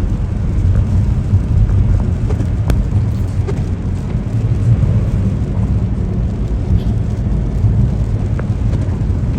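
Steady low rumble of a vehicle driving, with a few light clicks and knocks over it.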